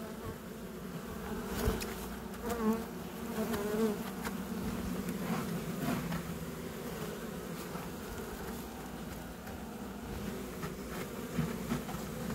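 A Buckfast honeybee colony in an opened hive buzzing steadily, a low continuous hum, with a few light knocks.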